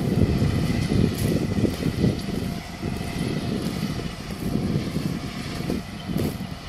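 Massey Ferguson tractor running while driving a Maschio Gaspardo Rapido Plus DMR4000 power harrow through the soil. A steady low rumble that grows somewhat quieter in the second half.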